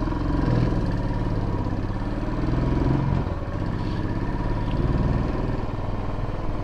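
Royal Enfield Bullet's single-cylinder engine running as the motorcycle rides along, its note dipping a little about three seconds in.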